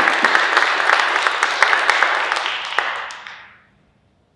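Audience applauding, the clapping fading out about three and a half seconds in.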